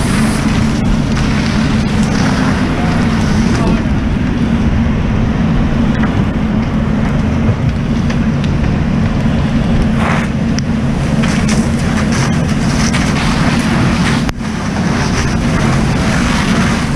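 Fire hose nozzle spraying a steady, loud rushing water stream onto a burning shed, over a steady low hum.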